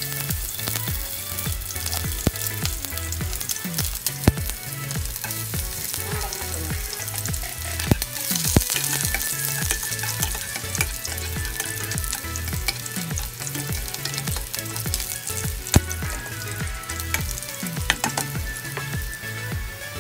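Chopped garlic and onion sizzling in hot olive oil in a pot, with a steady hiss. A spatula stirs them and knocks against the pan a few times.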